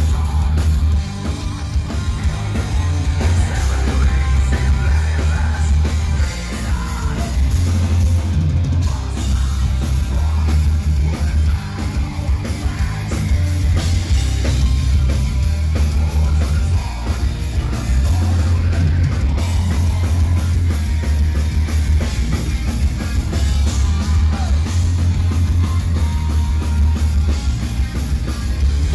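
Loud heavy rock music with a drum kit and a heavy, booming bass line.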